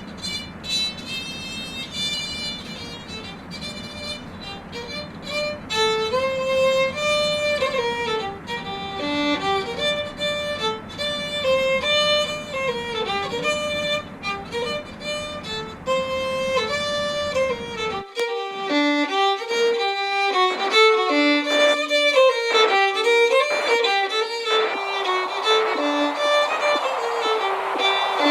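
Instrumental music: a single melody of quick, short notes. A low background noise under it cuts out suddenly about eighteen seconds in, and a hiss swells up near the end.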